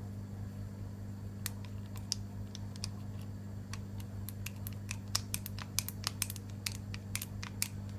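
A 7-pin tubular lockpick is being turned and rocked in a tubular disc-lock cylinder, making small sharp metallic clicks. The clicks are sparse at first and come much faster from about halfway in as the feeler pins set.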